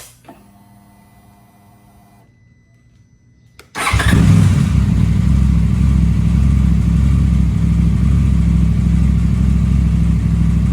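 A click and a faint whir as the ignition comes on. About four seconds in, the KTM 990 RC R's parallel-twin engine starts abruptly and settles into a steady idle.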